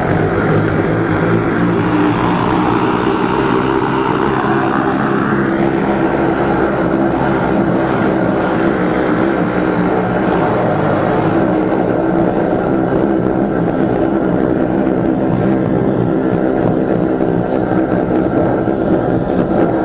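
13-horsepower engine-driven high-pressure sewer jetter running steadily at full pressure, with the hiss of water blasting from a double-barrel jetting nozzle inside a 100 mm rainwater pipe and spraying up out of the drain box.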